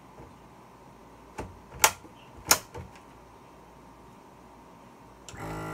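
Two sharp clicks about two seconds in, with a few softer taps, as things are handled on a kitchen counter. Near the end a steady electric motor hum starts.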